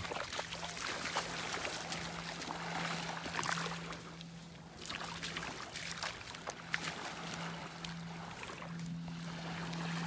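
Small waves lapping and trickling at the sandy edge of calm sea water, with a faint steady low hum underneath.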